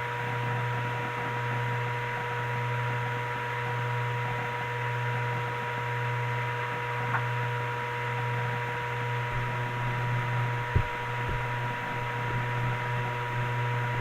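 Steady electrical hum and hiss with two faint steady tones, and a few faint clicks a little past the middle.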